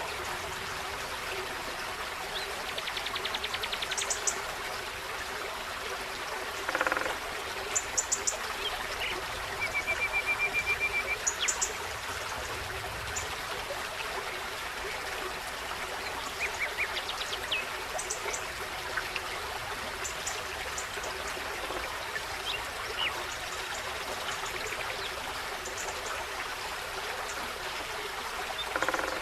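Forest stream trickling steadily, with small birds calling over it: short high chips, quick trills, and one longer even trill about ten seconds in. A brief louder call cuts in about seven seconds in.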